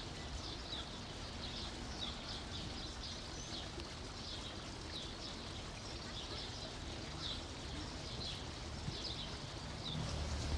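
Small birds chirping, short high notes repeating irregularly one or two a second, over a steady outdoor background noise. A low rumble swells up near the end.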